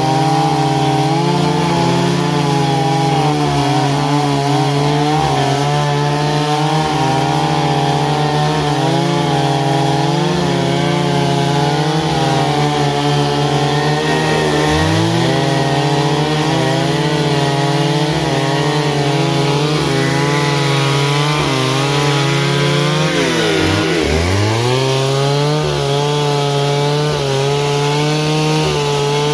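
Stihl MS 382 two-stroke chainsaw running at high revs, cutting wood. Its engine note sags sharply and recovers twice, about halfway through and again about nine seconds later.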